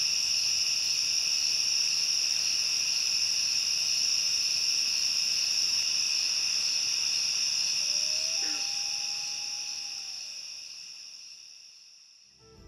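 Dense insect chorus of steady high trills in an evening wetland, with a faint short call about eight seconds in, fading out near the end.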